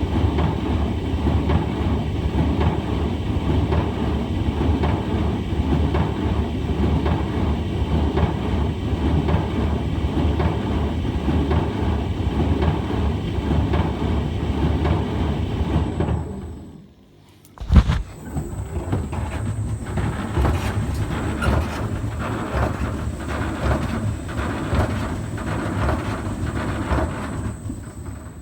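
Brand new Hotpoint tumble dryer running with a loud, rumbling drone, a noise its owner calls terrible and is unsure is normal for a new machine. About seventeen seconds in it dies away, a sharp click follows, and it starts again with a rhythmic pulsing and a thin high whine.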